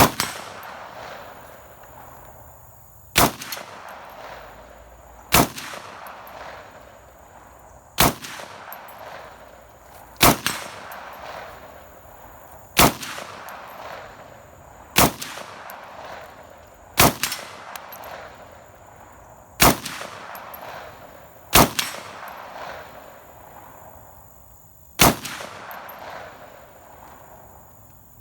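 Windham Weaponry AR-15 rifle in 7.62×39mm firing about a dozen single shots, roughly every two to three seconds, each shot trailing off in a long echo. The string ends when the magazine runs empty.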